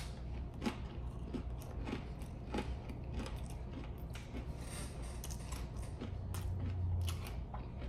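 Close-up chewing of a cracker topped with cheese and apple jam: irregular soft crunches and wet mouth clicks, several a second, over a faint low hum.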